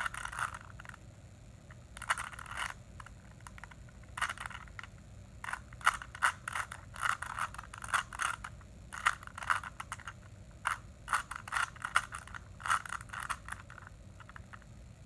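Plastic Rubik's cube being twisted by hand: short, irregular bursts of clicking and scraping as the layers turn, with brief pauses between runs of moves.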